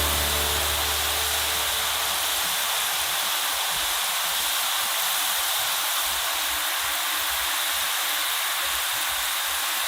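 Potatoes deep-frying in hot oil, a steady dense sizzling hiss, with the tail of background music fading out in the first couple of seconds.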